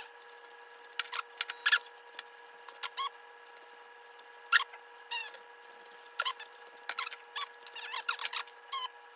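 Sped-up recording of a Rubik's Cube being turned by hand: quick plastic clicks and squeaky, chipmunk-like chirps come in scattered clusters, over a steady high hum.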